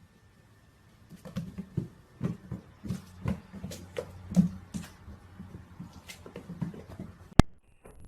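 Irregular soft tapping and scuffling, a string of uneven knocks over several seconds, then one sharp click near the end.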